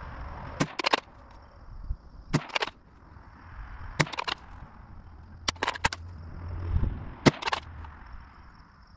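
Gunshots at a shooting range: sharp cracks in a steady cadence, each with a quick second crack just after, about every second and a half, five times over.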